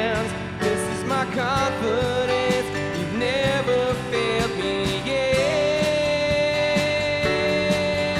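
A small worship band playing a slow song: strummed guitars, keyboard and drums, with a held, gliding melody line on top.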